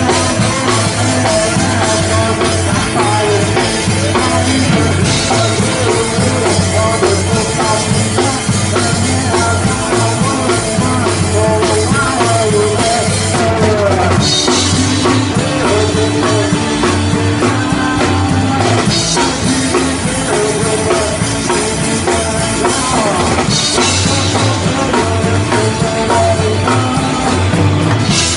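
A rock band playing live, loud and continuous, with the drum kit's bass drum and snare keeping a steady beat.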